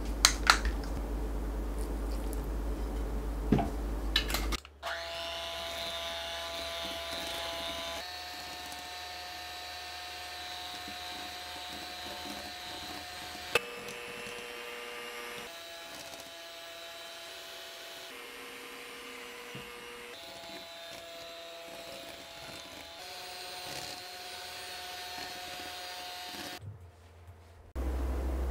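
Electric hand mixer running steadily, its beaters creaming butter for pound cake batter in a glass bowl. The motor's whine shifts slightly in pitch every few seconds. It is preceded by a few light clicks near the start.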